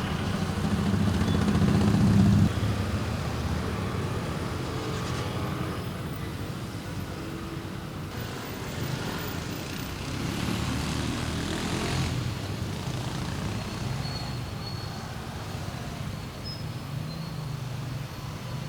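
Street traffic: small cars and motorbikes passing at low speed, their engines and tyres making a steady rumble. One vehicle is loud and close at first, then fades out suddenly after about two seconds.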